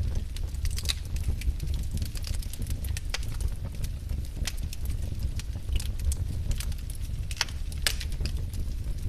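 Burning firewood crackling, with irregular sharp snaps and pops over a steady low rumble.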